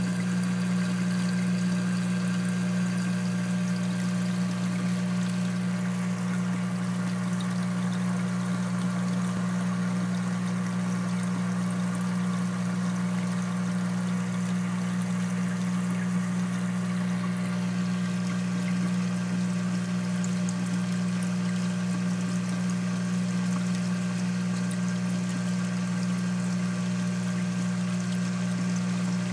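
Aquarium sump running: water splashing and trickling steadily over a constant low hum from the pump.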